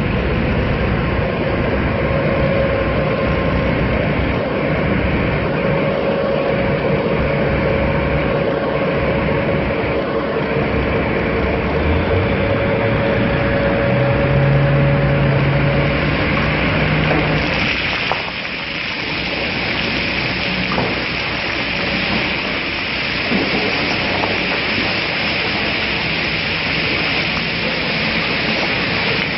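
A large mine haul truck's diesel engine runs steadily, its pitch rising about halfway through as the body is raised. From a little past halfway, its load of rock slides off the tipped body and pours into a crusher hopper with a steady rushing rumble.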